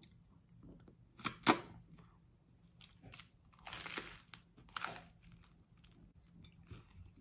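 Close-up eating sounds: crunchy bites and chewing of toasted garlic bread, in short crackly bursts around four and five seconds in, after a couple of loud sharp mouth noises about a second and a half in.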